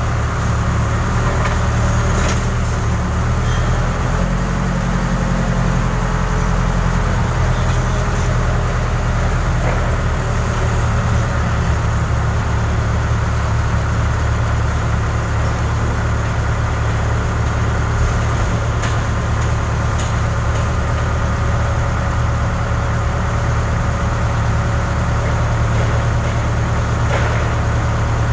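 Diesel engine of a Case 580 Super K backhoe loader running steadily, with a slight shift in its low pitch a few seconds in. A few faint clicks or knocks sound over it.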